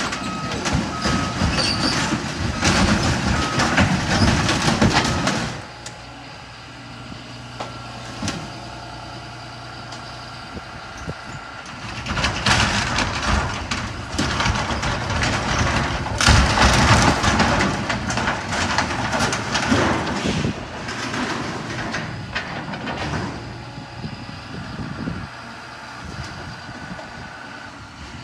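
Heavy machinery demolishing a storm-damaged building: an engine runs steadily throughout. Three loud stretches of crashing and scraping break over it, in the first five seconds, around twelve seconds in, and from about sixteen to twenty seconds.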